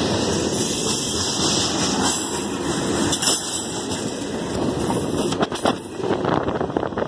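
Freight cars of a manifest train rolling past at close range: a steady rumble and rattle of steel wheels on the rails, with a few sharp knocks in the second half.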